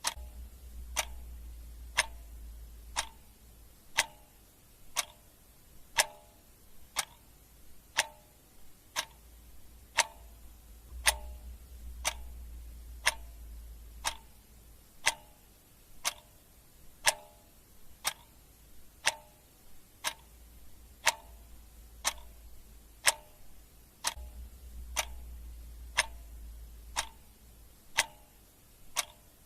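Clock ticking steadily about once a second, the ticks alternating in tone between a plain click and one with a short ring, over a faint low hum that swells and fades.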